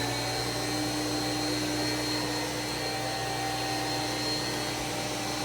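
A 1952 Electrolux XXX canister vacuum cleaner's electric motor running steadily just after being plugged in. Its steady hum and whine sit over an even rush of air.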